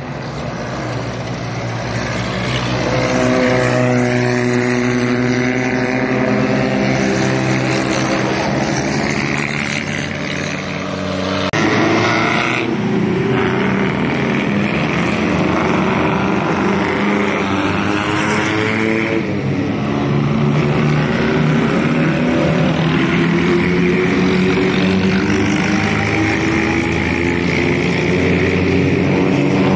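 Pre-war vehicle engines running loudly, their pitch climbing and shifting as the revs change, with sudden changes about a third and two-thirds of the way through.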